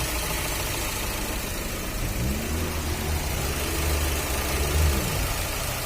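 Fiat Uno's 1.4 Evo Fire four-cylinder engine running, its pitch rising briefly about two seconds in and settling back near the end. No abnormal tapping: the noise from worn tappet bores was cured by replacing the cylinder head.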